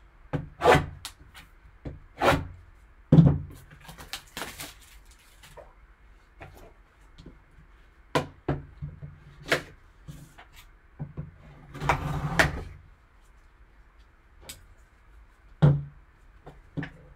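Plastic shrink wrap being slit and pulled off a cardboard trading-card box: a run of sharp crackles and taps, with a longer stretch of rustling plastic about twelve seconds in.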